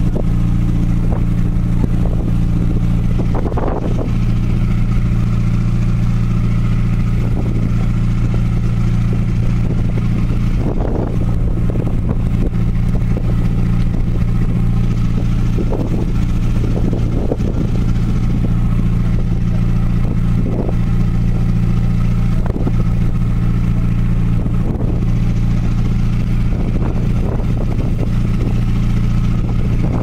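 Steady low drone of a ferry's engine, with brief higher sounds rising above it now and then.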